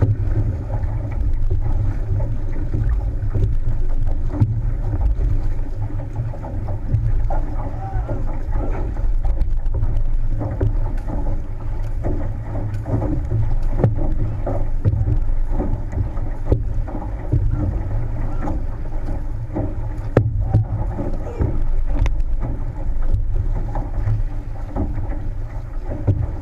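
Wind buffeting the microphone with a heavy low rumble, over water rushing and splashing along the hull of a six-person outrigger canoe (OC6) being paddled hard, with scattered knocks from the paddle strokes.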